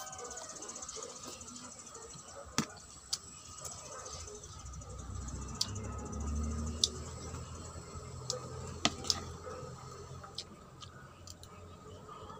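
Eating sounds close to the microphone: scattered sharp clicks and mouth smacks of someone chewing noodles, over a faint steady background.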